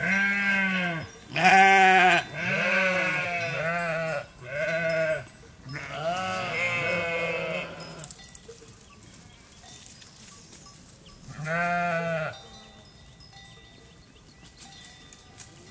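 Sheep bleating: a run of wavering bleats, one after another, over the first eight seconds, the last one longer, then a single bleat after a short pause.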